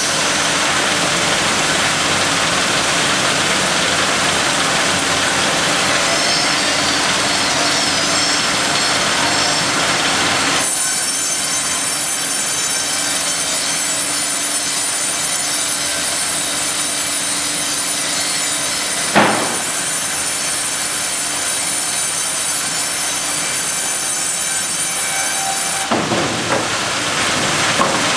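Ustunkarli UHM 140 H log bandsaw sawing a log fed on its hydraulic carriage: steady, loud machine noise, joined about ten seconds in by a high whine with many overtones that stops a couple of seconds before the end. A single sharp knock comes in the middle, and a few knocks follow as the whine stops.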